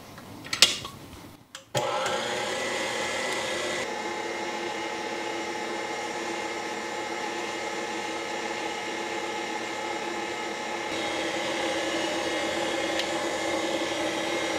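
Tilt-head stand mixer beating a cream cheese and lime juice icing with its wire whisk. A click comes first, then a little under two seconds in the motor starts a steady whine, which changes tone about four seconds in.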